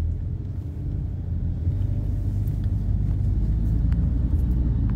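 Steady low rumble of a moving car, engine and road noise heard from inside the cabin through a phone's microphone, with a few faint ticks.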